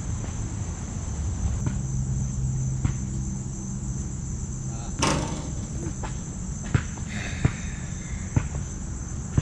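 Steady high buzzing of insects throughout, with one loud sharp snap about five seconds in and a run of short sharp ticks, about one a second, near the end.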